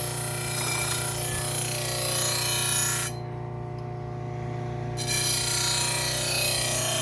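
Bucktool low-speed bench sander running with a leather wheel while a kitchen knife edge is stropped against it: a steady motor hum under a rubbing hiss. The hiss drops away for about two seconds in the middle, leaving only the hum, then comes back.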